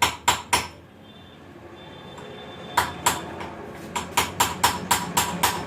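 Hammer blows on metal, each with a short ringing clang: three quick strikes at the start, two more about three seconds in, then a steady run of about seven at roughly four a second near the end.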